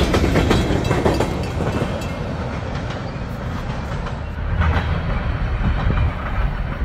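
Freight train of tank cars rolling past: wheels clattering over the rail joints for the first second or so, then a lower rumble as the train moves away.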